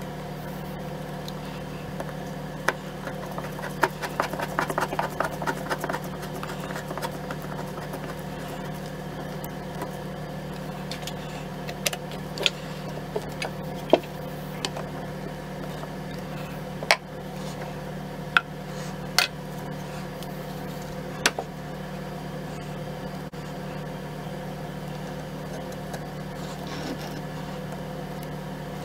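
Scattered sharp metal clicks and clacks as the parts of a Mauser K98k rifle are handled and fitted together, with a quick rattling run of clicks about four seconds in. A steady hum sits underneath throughout.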